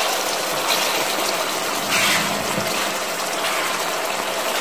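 Ground beef, onions and green pepper sizzling and bubbling in their juices in a frying pan, a steady hiss, stirred with a slotted spatula.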